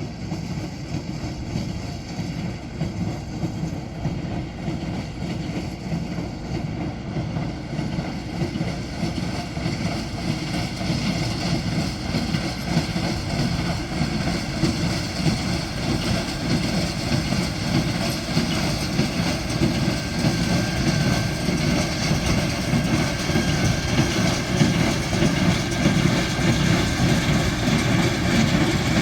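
LS tractor running steadily as it pulls a hay baler, the engine's drone mixed with the baler's mechanical clatter.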